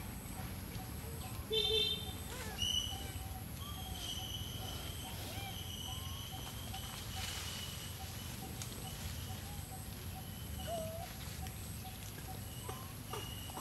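Forest ambience: scattered bird calls and chirps over a steady background hiss, with two short, louder calls about one and a half and two and a half seconds in, and a held high whistle-like tone for a few seconds in the middle.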